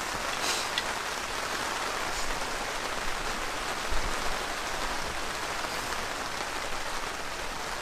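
Steady heavy rain, an even continuous hiss, with a soft low thump about four seconds in.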